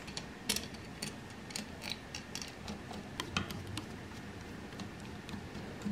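Scattered light metallic clicks and ticks as a rebuilt Weber 32/36 carburetor is handled and turned over by hand, its linkage and loose fittings knocking lightly.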